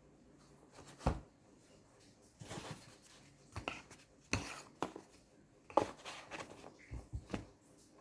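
Close handling sounds of a smartphone and its packaging: about ten light clicks and knocks at irregular intervals, with a short rustle about two and a half seconds in.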